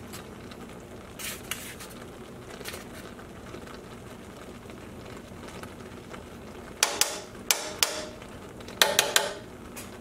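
Small metal measuring spoon tapping and clinking against metal, a few faint taps early and then two quick clusters of sharp clinks about seven and nine seconds in, over a low steady hiss.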